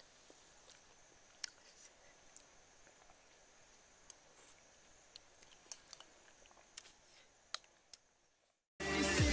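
Faint eating sounds as pumpkin porridge is taken from a spoon: a few scattered small clicks and mouth smacks over a steady faint high-pitched drone. Near the end it cuts to silence, and then loud electronic music starts.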